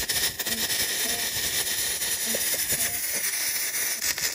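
MIG welder arc crackling and hissing steadily as a bead is laid on steel flat bar and plate, filling in the cuts to make the joint strong again.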